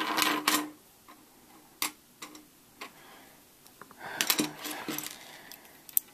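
Plastic Lego pieces clicking and rattling as they are picked out and set down: a cluster of clicks at the start, a few single clicks, and another rattling handful about four seconds in.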